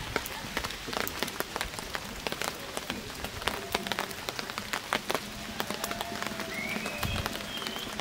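Campfire of wood and paper crackling in a metal fire pit: dense, irregular sharp snaps and pops over a light hiss. A faint thin whistling tone comes and goes in the second half.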